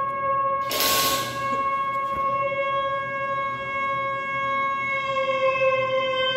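A steady musical drone held on one pitch, rich in overtones, with a brief rushing hiss about a second in.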